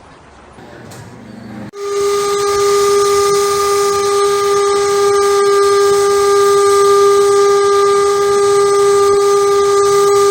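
Steam whistle blowing one long, steady blast: a single held chord over a loud hiss of escaping steam. It starts about two seconds in.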